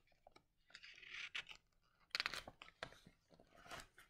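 Paper pages of a large hardback picture book being turned and handled: a few short rustles and crinkles.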